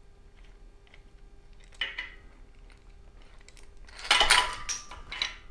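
Steel bushing-puller parts (threaded rod, nuts and spacer cup) clinking and scraping against each other as the rod and the pulled jackshaft bushing are drawn out of the V12 block: a single sharp clink about two seconds in, then a louder burst of clinking and rattling about four seconds in.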